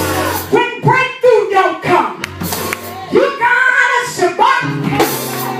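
Praise and worship music: voices singing over instrumental accompaniment, with sustained low notes under the melody.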